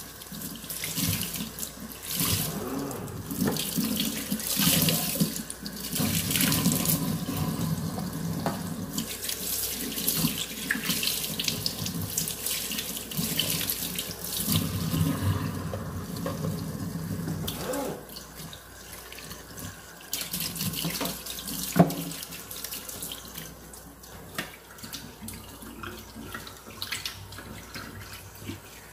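Kitchen tap running into a sink while dishes are hand-washed, with scattered clinks and knocks of dishware. The water runs heavier for most of the stretch and turns softer near the last third, and one sharp clack stands out about three-quarters of the way through.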